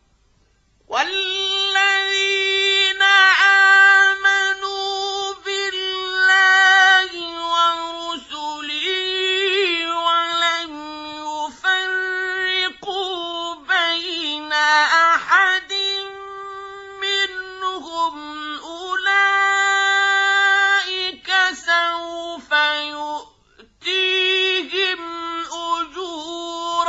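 Male Quran reciter's voice chanting in the melodic mujawwad style: long held, high-pitched notes with ornamented glides and trills, starting about a second in, with a short breath pause near the end.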